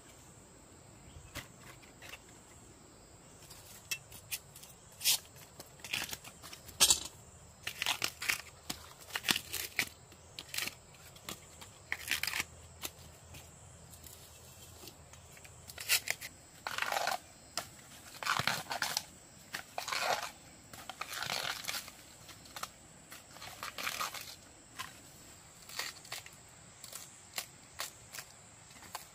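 Irregular crackling and tearing of plant material, in uneven clusters of short noises, over a steady high insect trill.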